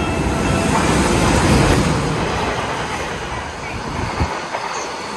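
Freight train, a red electric locomotive and container wagons, passing at speed on the track beside the platform. A loud rush of wheels and air builds to a peak about a second and a half in, then eases off as the wagons run by, with a sharp clack of wheels over a rail joint near the end.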